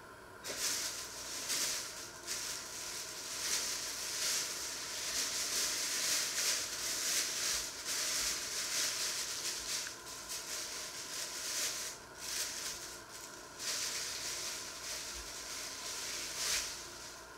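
Thin plastic bag crinkling and rustling as hands dig into it and pull something out, in long stretches with a few brief pauses.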